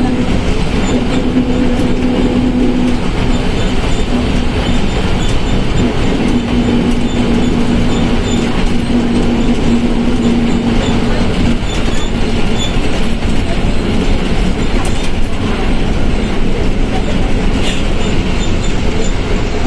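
Volkswagen Volksbus 17.230 OD bus under way: engine and drivetrain running with a loud, steady drone. A hum fades in and out over it. The transmission is growling, a sign of a worn gearbox.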